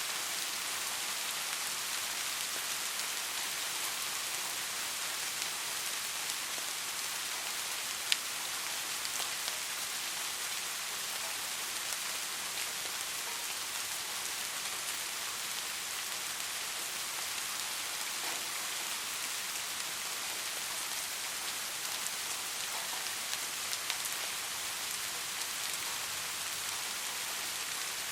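Soft rain falling steadily, an even hiss with scattered drop ticks, and one sharp louder drop click about eight seconds in.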